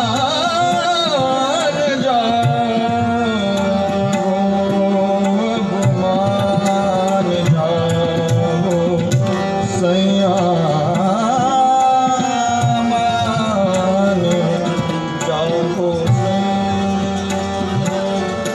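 Live Hindustani light-classical (thumri-dadra) performance: tabla keeping a steady rhythm under sustained harmonium tones, with a male voice singing long, gliding ornamented phrases.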